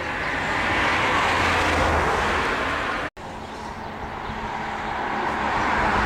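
Road traffic noise from cars passing: a rushing tyre-and-engine sound swells up and holds, cuts off abruptly about halfway, then swells again.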